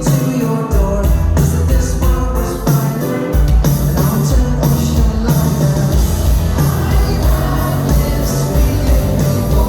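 Live pop-rock band playing with a lead vocal, full drums, bass and guitars. The bass drops out briefly twice in the first few seconds.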